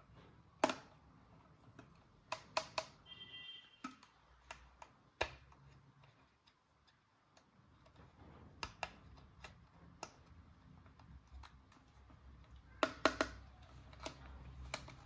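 Small plastic toy pieces being handled: scattered sharp clicks and taps at irregular intervals, some in quick runs of two or three, with a brief high squeak about three seconds in.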